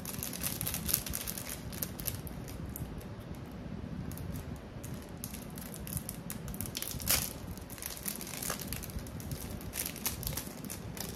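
Small packaging pouch crinkling and crackling as it is handled and torn open by hand, with one louder crackle about seven seconds in.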